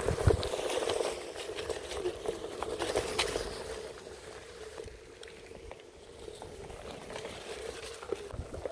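Onewheel electric boards riding a trail of dry leaves: a steady hub-motor whine with the tyres crackling and popping over leaves and twigs. There is wind rumble on the microphone in the first moment, and the sound gets quieter about halfway through.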